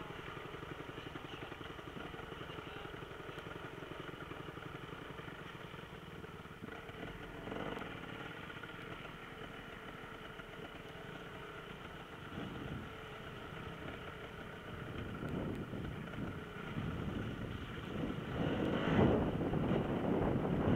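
Off-road enduro motorcycle engine running at a fairly steady pitch, getting louder near the end.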